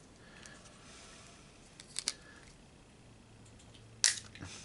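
A few sharp metallic clicks of hand tools and small parts being worked during disassembly of a throttle body: a quick double click about two seconds in and a louder single click near the end, with quiet in between.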